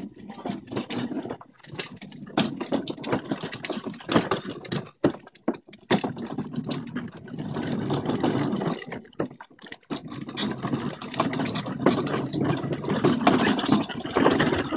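Hard plastic wheels of a toddler's push-along ride-on car rolling and rattling over paving slabs and a concrete path, with a couple of brief pauses.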